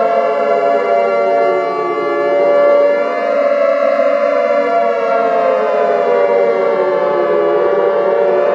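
Emergency siren wailing, several siren tones sounding together: some held at a steady pitch while others slowly fall and rise over several seconds.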